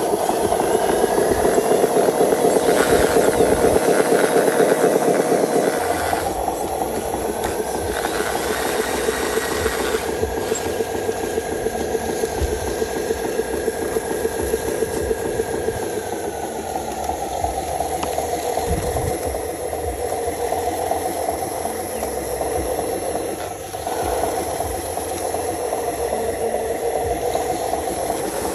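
Simulated diesel truck engine sound from a radio-controlled model truck, running steadily at idle with a fast rattling knock; louder for the first few seconds, then settling.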